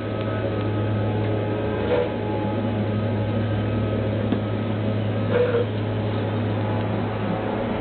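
A steady low hum under a constant background noise, with a couple of faint short sounds about two and five seconds in.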